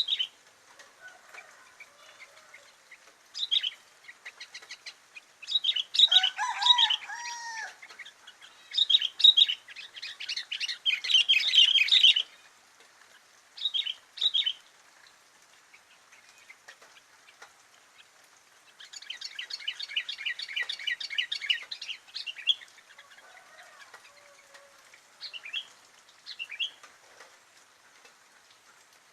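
Sooty-headed bulbul (kutilang) singing in bursts of fast chirps and trills separated by pauses, with a few lower whistled notes about seven seconds in.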